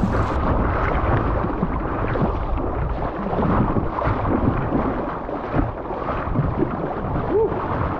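Rushing, splashing river water as a kayak runs a rapid, with a heavy low rumble on the microphone.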